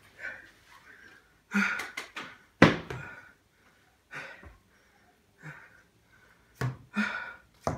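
Card deck boxes being handled and opened, with one sharp clack about two and a half seconds in, the loudest sound, among short breathy vocal noises.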